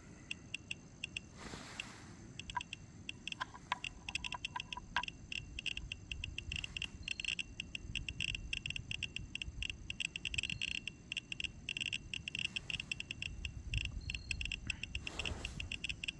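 Better Geiger S-1 radiation detector clicking with each count while a radioactive check source sits on it. The short high-pitched clicks come sparsely at first and grow much faster and denser after about six seconds as the dose rate climbs.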